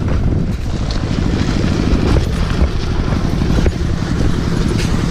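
Tractor engine chugging steadily with a rapid, even low pulsing, heard from aboard while it drives over a rough dirt track.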